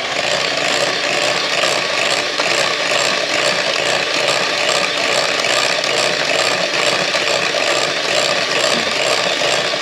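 Electric hand mixer running steadily, its twin beaters whipping cream cheese and icing sugar in a glass bowl, with a fast, even rattle over the motor whir.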